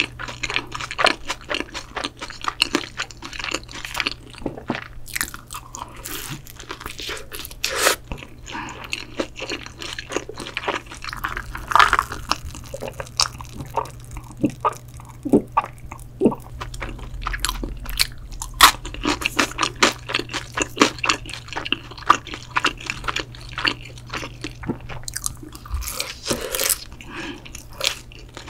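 Close-miked chewing and crunching of shrimp pizza with a crisp crust, with wet mouth sounds and bites throughout. Around the middle comes a quieter stretch of swallowing cola from a glass before the chewing resumes.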